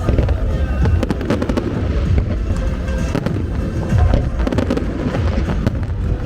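Aerial fireworks display going off in a continuous barrage: dense crackling with many sharp pops over a steady deep rumble of bursts, with music playing underneath.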